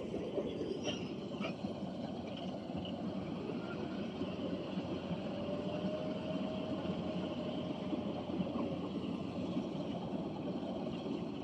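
An engine running steadily, heard as a constant drone. A faint whine drifts up a little in the middle and then fades out, and there are a few light clicks about a second in.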